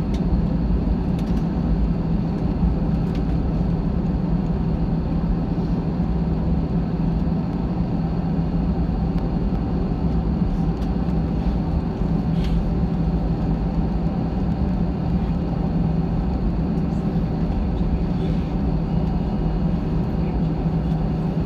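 Jet airliner taxiing after landing, heard inside the cabin: a steady low drone of the engines at taxi power and rolling noise, with a constant low hum and a few faint ticks.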